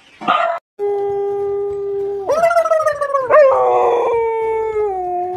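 A dog howling: long held notes that jump higher a little over two seconds in, then waver and slide down toward the end. A short sound at the very start is cut off abruptly.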